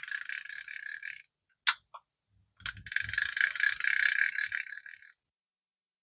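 Vintage Daiwa 206RL spinning reel, freshly cleaned and greased, being cranked by hand: a rapid, even ratchet-like clicking, typical of the anti-reverse pawl running over its ratchet while the rotor turns. It comes in two spells, with a couple of single clicks between them.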